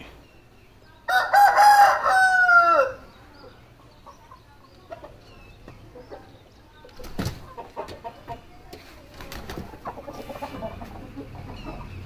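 Aseel rooster crowing once, a call of about two seconds that starts a second in and drops in pitch at its end. A few faint knocks follow.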